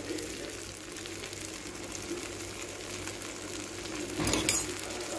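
Rava dosa batter frying in oil on a hot tawa: a steady soft sizzle, with a brief louder burst of noise about four seconds in.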